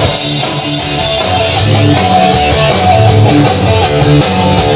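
A live band playing, loud and continuous.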